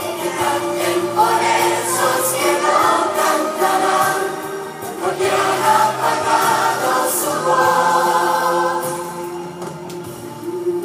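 Children's choir singing a song in Spanish together, with instrumental accompaniment.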